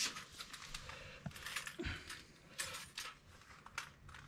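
Faint handling noises as gloved hands work around a turbocharger: scattered small clicks and rustles, with a soft thump about two seconds in.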